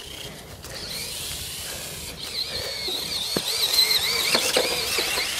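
Toy RC car's electric motor whining as it drives across grass, the pitch wavering up and down with the throttle from about two seconds in, with a few light clicks.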